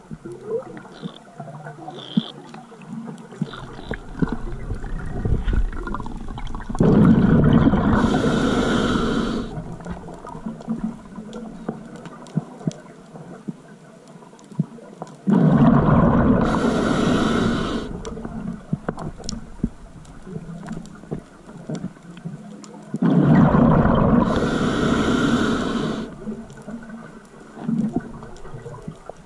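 A scuba diver's regulator exhaling underwater: three bursts of bubbling, each about two to three seconds long and about eight seconds apart, in the rhythm of slow breathing. Sharp clicks are scattered through the quieter stretches between breaths.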